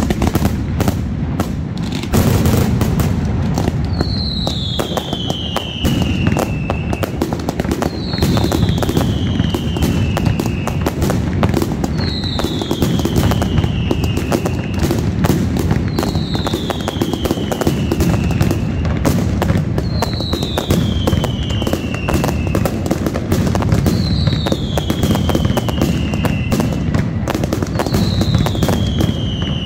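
Pirotecnia Alpujarrena mascletà: a dense, continuous barrage of firecrackers crackling and banging with a heavy low rumble, growing louder about two seconds in. A falling whistle repeats about every four seconds over the barrage.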